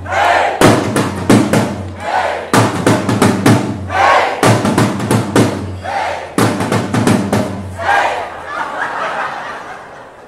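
Solo marching drum struck in quick bursts of sharp strokes, each burst broken off by a short pause, with shouts and cheers rising in the gaps.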